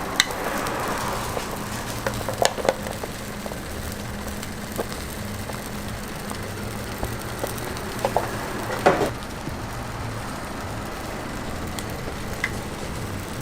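Food sizzling on a hot griddle, a steady hiss over a faint low hum. A few sharp knocks and clatters of utensils break through, the loudest about nine seconds in.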